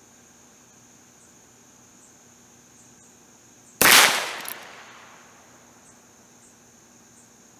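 A single shot from a Heritage Rough Rider .22 rimfire revolver about four seconds in: a sharp crack that rings out and fades over about a second.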